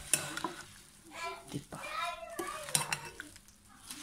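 Metal spoon stirring a wet chopped salad of tomato, parsley and bulgur in a bowl, knocking and clinking against the bowl several times.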